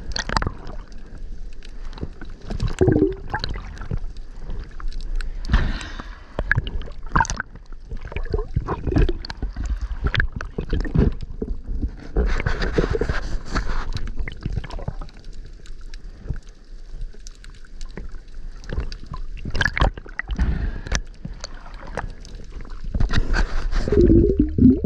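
Seawater sloshing and gurgling around the camera, with irregular knocks and splashes.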